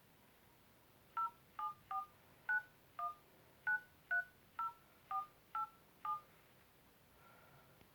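Mobile phone keypad dialling tones as a number is keyed in: eleven short two-tone beeps at about two a second, starting about a second in.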